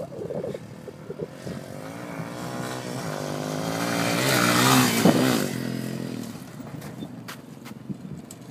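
Dirt bike engine approaching and passing close by, its pitch rising and falling with the throttle, loudest about halfway through, then fading as the bike rides away.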